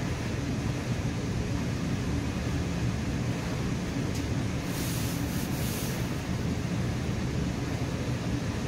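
Interior of a moving commuter train coach: a steady low rumble of wheels on the rails and running gear, with a brief higher hiss about five seconds in.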